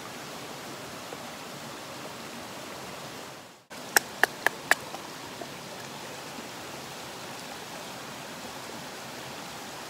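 Steady rushing of a mountain stream, which drops out for a moment about three and a half seconds in. Just after, four sharp clicks in quick succession come from the knife and leather sheath being handled.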